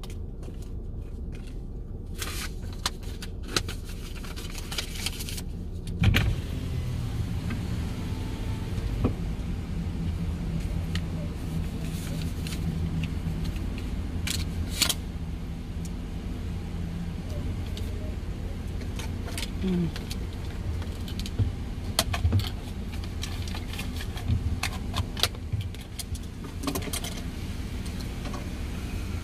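Keys jangling and clicking for the first few seconds, a sharp thump about six seconds in, then the steady low rumble of a car running, heard from inside the cabin, with occasional small clicks.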